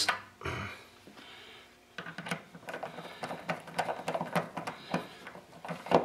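Irregular small metallic clicks and taps of a screwdriver and wire ends at the terminal screws of an electric water heater's heating element, starting about two seconds in and coming several times a second.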